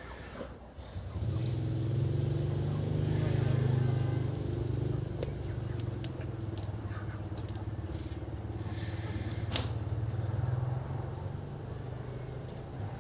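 A motor engine running with a steady low drone that comes in about a second in, with a few sharp clicks heard over it.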